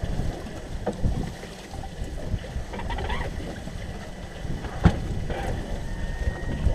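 Wind buffeting the microphone and waves slapping against a small aluminium boat, with a few knocks from gear in the boat, the sharpest about five seconds in, as a gill net runs in over a net hauler.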